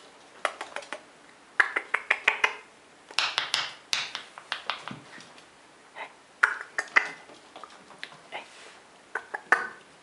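A person making short clusters of sharp clicks to call a pet squirrel over to a nut held out in the hand.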